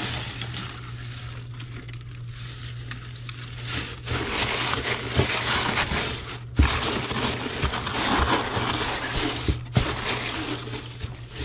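Crinkle-cut shredded paper packing filler rustling and crunching as a hand digs through it in a cardboard box, busier after about four seconds, over a steady low hum.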